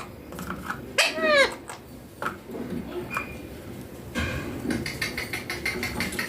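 A young Indian ringneck parakeet calling: one loud, high-pitched arched call about a second in, a short high note, then a run of rapid chattering.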